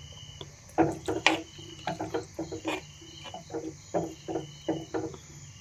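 Steel spoon stirring green chillies in tamarind water in a clay pot. It clinks and scrapes against the pot in short, irregular knocks, about two a second, starting about a second in.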